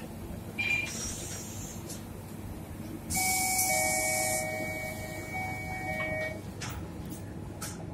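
Scania K230UB city bus at a stop: a burst of compressed-air hiss from the door pneumatics about three seconds in, with a steady two-tone electronic door warning buzzer sounding for about three seconds, over the low running of the idling engine. A couple of sharp clicks follow near the end.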